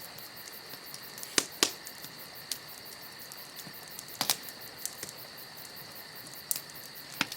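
Campfire burning with a steady hiss and crackle, broken by sharp pops a handful of times.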